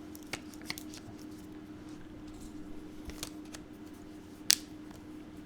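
Small clicks and taps from a smartphone and its casing being handled, with one sharper click about four and a half seconds in, over a faint steady hum.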